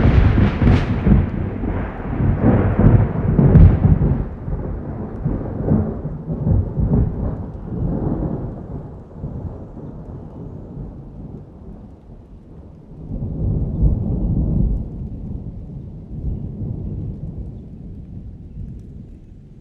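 Thunder: a loud, rolling rumble that dies away slowly over about ten seconds, with a second rumble swelling up about two-thirds of the way through and fading again.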